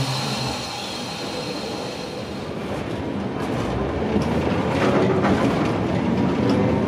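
Streetcar running, heard inside the car: steady rolling and running noise that grows louder about a third of the way in as the tram picks up speed, with a few knocks from the wheels on the rails.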